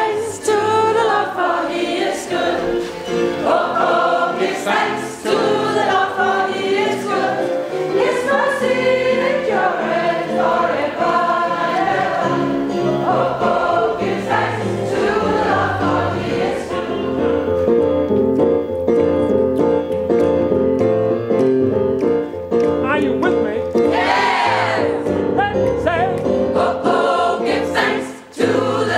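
Large gospel choir singing together in several voices, with one voice sliding up high above the others about 24 seconds in.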